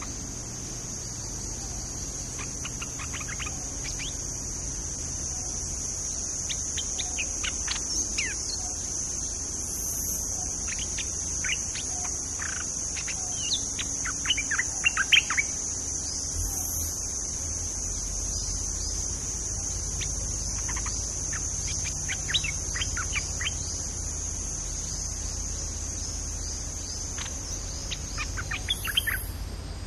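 Bulbuls calling in short, quick chirps that come in clusters, the loudest about halfway through and another flurry near the end. A steady high-pitched insect drone runs underneath.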